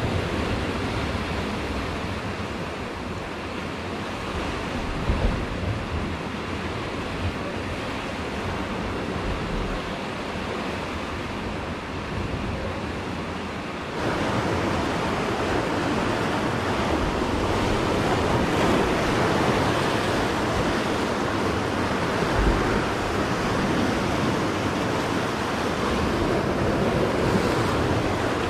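Sea surf washing and churning against a rocky shore, a steady rushing noise that gets louder about halfway through, with a few low wind thumps on the microphone.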